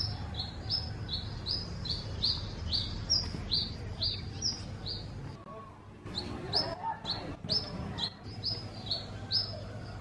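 A sunbird calling: a quick run of short, high chirps, about three a second, breaking off for about a second halfway through, then starting again.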